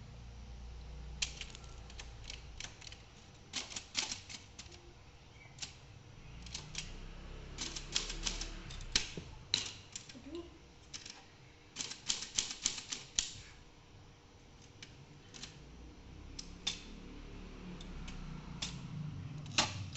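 Brother 750 TR manual typewriter being typed on: the keys strike in irregular runs of quick clacks, with pauses between the runs.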